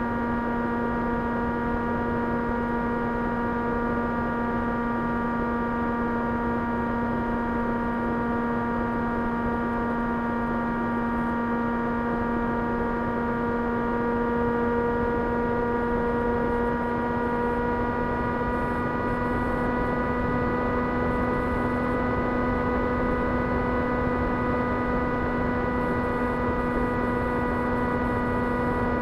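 An S800 FPV plane's 2300KV brushless motor and propeller running at a steady cruise throttle: an even, steady hum, its pitch rising slightly about two-thirds of the way through.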